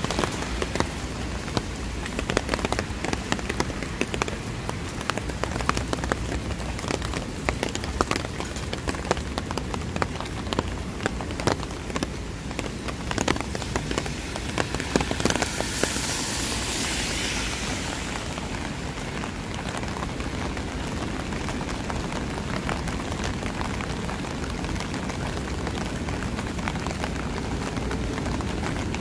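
Rain falling, with many sharp drop ticks on a nearby surface through the first half. A hiss swells and fades a little past halfway, then the rain goes on as a steadier patter.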